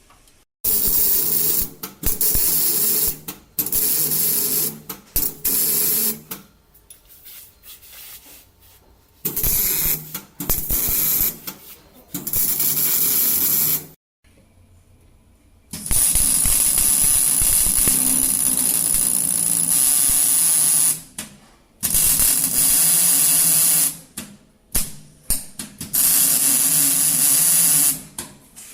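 Welding on a car exhaust pipe, most like a MIG welder: a buzzing, crackling hiss in repeated bursts of one to five seconds, stopping and restarting about eight times.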